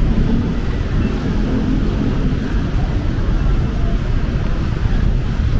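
Steady low rumble of street traffic and vehicle engines, with no clear single event standing out.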